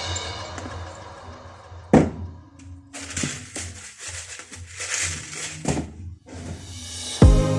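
Soft background music that drops away, with a sharp knock about two seconds in and a few seconds of clattering and scrubbing noise; the music comes back in near the end with a strong beat.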